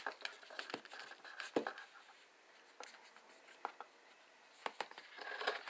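Hands handling a makeup palette in its cardboard sleeve: scattered light clicks and taps, with a short rustle of cardboard about five seconds in.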